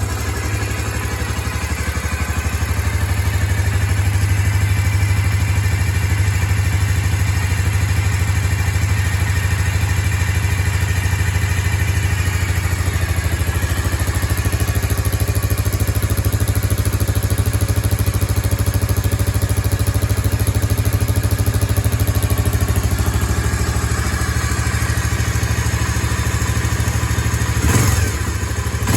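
Suzuki DR250S's air-cooled single-cylinder four-stroke idling steadily through its stock muffler, the idle set slightly high to keep it from stalling. The exhaust note rises briefly near the end.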